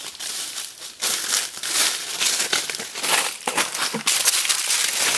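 Footsteps crunching and crackling through dry fallen leaves and brush. The steps come irregularly and grow louder about a second in.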